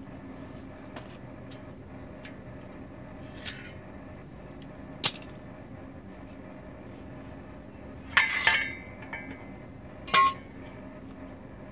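Steel welding work being handled: a sharp metallic click about five seconds in, then a ringing clatter of metal on metal and another single ringing clank near the end, over a steady low hum.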